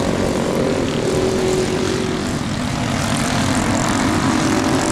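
Several small 120 cc kids' racing snowmobile engines running together at high revs, a steady buzz that dips briefly about halfway through and then builds again.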